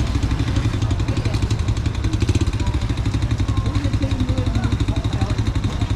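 Motorcycle engine running close by with a steady, fast putter, over faint background voices.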